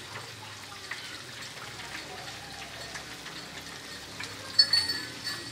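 Noodle broth simmering and bubbling in a wok, with a sharp metallic clink about four and a half seconds in.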